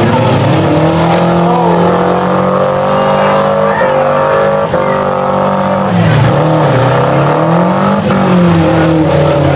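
Several four-cylinder demolition derby cars' engines revving loudly, their pitch rising and falling again and again as the drivers push and ram in the mud.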